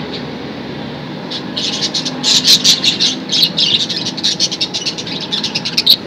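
Budgerigars chirping and chattering in rapid, short high calls that start about a second and a half in and are busiest around the middle, over a steady low background rumble.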